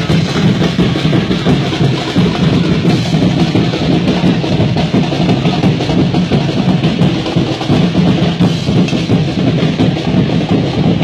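Loud, drum-heavy music with bass and snare drums beating without a break.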